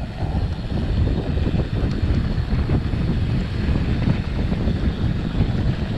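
Wind buffeting a handlebar-mounted action camera's microphone, mixed with the low rumble of mountain bike tyres rolling fast over a dry dirt trail.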